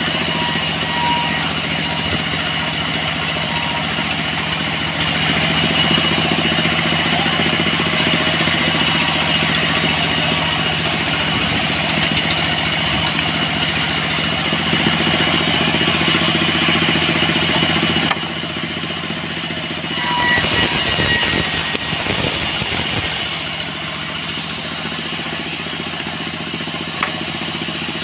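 Engine-driven portable sawmill running steadily while its saw rips dry salam (Indonesian bay leaf) timber. The sound drops suddenly about 18 seconds in, swells briefly around 20 seconds, then settles quieter from about 23 seconds.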